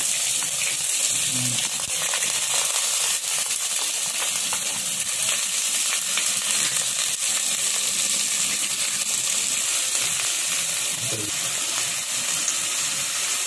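Chopped onions frying in hot oil with a steady sizzle, a wooden spatula stirring them through the pan.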